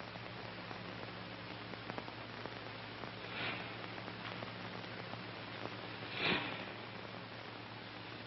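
Steady hiss and low hum of an old film soundtrack, with two brief soft swishing or breathy noises, one about three and a half seconds in and a louder one a little past six seconds.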